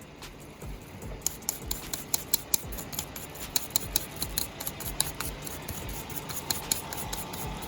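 Electric arc welder laying a weld, crackling and spitting in an irregular run of sharp pops over a steady hiss that starts about a second in. It is tacking a bolt onto the back of a fabricated seatbelt anchor plate.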